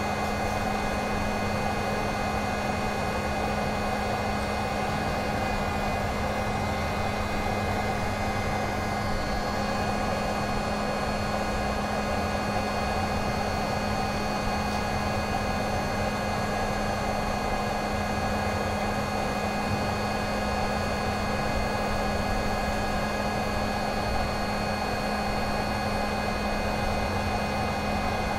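Heat gun running steadily: a rush of blown air over a low hum and a few high whining tones from its fan motor.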